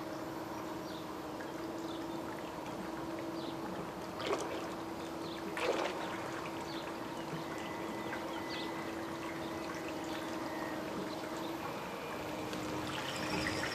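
Scale model buoy tender running through pool water: a steady hum from its drive over trickling, lapping water, with two brief louder sounds about four and six seconds in.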